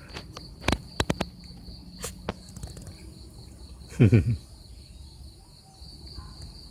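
Insects trilling steadily in one high, finely pulsing note, with a few sharp clicks in the first half and one brief, low voice sound about four seconds in.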